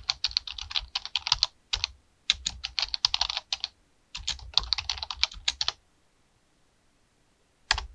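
Computer keyboard typing: three quick runs of key clicks with short pauses between them, then one more click near the end.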